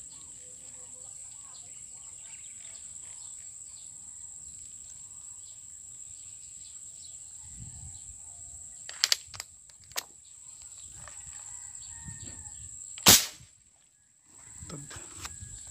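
A single sharp shot from an air gun fired at a fish in the water, about thirteen seconds in, the loudest sound; a few smaller clicks come a few seconds before it, over a steady high-pitched whine.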